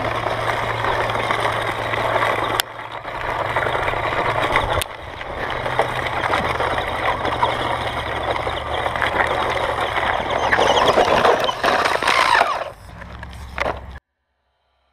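Radio-controlled short-course truck driving on gravel: a dense crunching of tyres over loose stones over a steady low hum. The sound drops out abruptly twice a few seconds in, then cuts off to silence about a second before the end.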